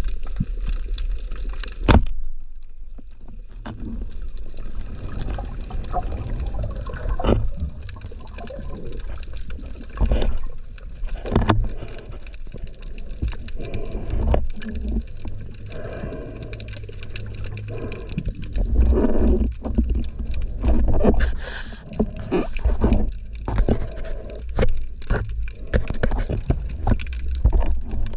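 Underwater sound picked up by a camera on a diver's speargun: water rushing and gurgling past the housing, with irregular knocks and clicks from the diver's movements and gear.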